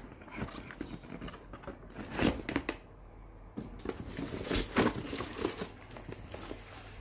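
Hands handling Apple AirPort Extreme base stations and their cables in a cardboard shipping box: irregular rustling and crinkling with light knocks of hard plastic. It is busiest about two seconds in and again around four to five seconds in.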